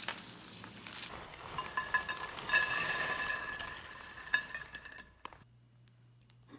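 Plastic snack packaging crinkling and rustling as it is handled, with small clicks, stopping suddenly about five seconds in.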